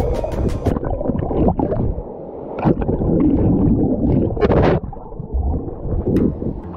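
Water sloshing and splashing around boots wading up a shallow mountain stream, in irregular surges with sharper splashes twice.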